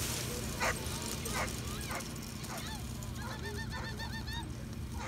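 An excited dog yipping in quick high-pitched runs, several calls a second, after a few sharper single barks in the first two seconds.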